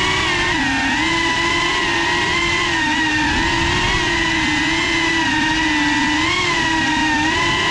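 FPV quadcopter's electric motors whining steadily, the pitch wavering slightly up and down with the throttle as it weaves.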